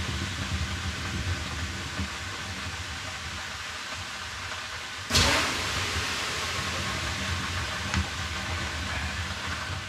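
Water thrown onto the hot stones of a wood-fired sauna stove about halfway through: a sudden burst of hissing steam that slowly dies away, over a steady low rumble.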